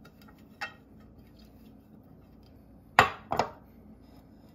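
Glass food-storage container knocked down onto a stone countertop, two sharp knocks close together about three seconds in, after a light click near the start.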